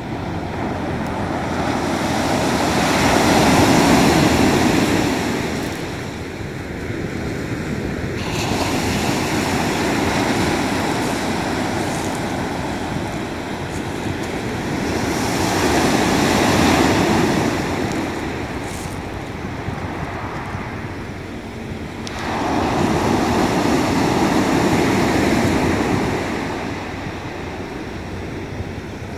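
Sea waves breaking on a pebble beach and washing back. The rush swells and fades four times, about every six to seven seconds.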